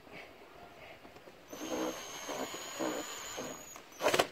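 Cordless drill-driver running for about two seconds, driving a screw down into the plastic air filter housing lid, followed near the end by a brief loud clatter.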